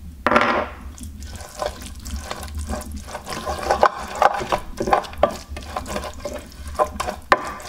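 Wooden pestle stirring and scraping wet, coarse peanut paste mixed with soy sauce around a glazed clay bowl, in irregular squelchy strokes. A louder scrape comes just after the start.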